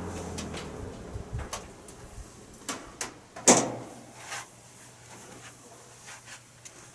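GE W25 box fan switched off and coasting down, its running noise dying away to near quiet. A scatter of sharp clicks and knocks over it, the loudest about three and a half seconds in.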